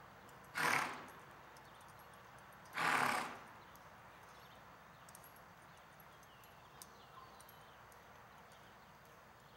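Horse snorting twice: two short, loud blasts about two seconds apart, followed by faint hoof steps in soft arena dirt.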